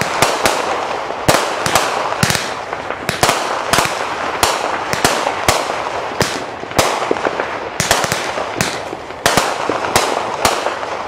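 Aerial fireworks bursting: an irregular run of sharp bangs, often two or three a second, with a continuous rushing noise between them.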